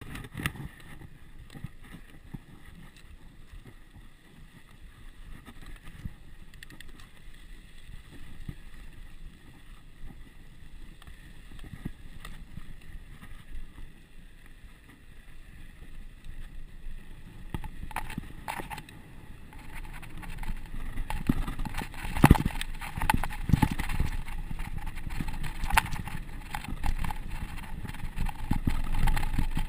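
Mountain bike rolling down a dirt fire road: a low rush of wind and tyre noise with the bike clattering and knocking over bumps. It grows louder and the knocks come thicker from a little past halfway as the bike picks up speed on the steeper grade.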